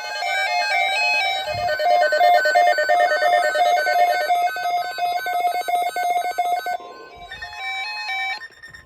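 Several NOAA weather radios sounding their electronic alert beeps at once, a busy overlapping mix of rapid repeating beep patterns signalling a received weather alert. The beeping thins out about seven seconds in, leaving fewer beeps and a steady high tone.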